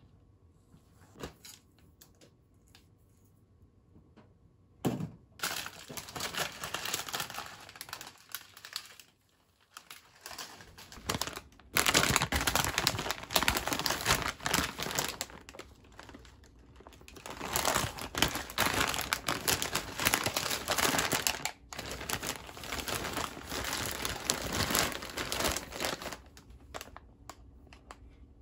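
Plastic food packaging crinkling and rustling as packs of dried goods are handled and slid into a plastic storage basket. It starts about five seconds in, comes in bursts with short pauses, and is loudest around the middle.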